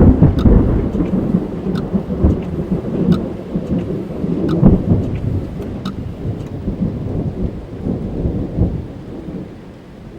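A thunderclap breaks right at the start and rolls on as a long low rumble, swelling again about halfway through and then dying away. Rain drums on a car's roof and windscreen, heard from inside the cabin.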